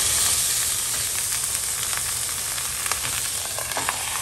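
T-bone steak sizzling as it fries in olive oil in a pan: a steady high hiss with scattered small pops of spattering fat.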